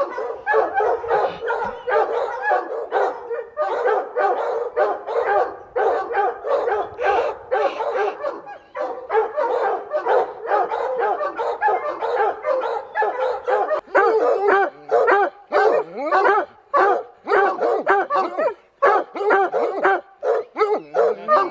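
Several hounds baying at a treed mountain lion, their barks overlapping in a constant chorus with no pause; this is the tree bark that shows the cat is held up the tree.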